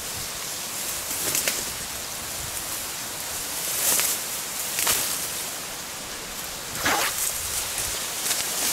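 Dry marsh reeds and grass rustling and crackling as a dead sika deer is lifted and shifted through them by hand, with a few louder brushing swishes.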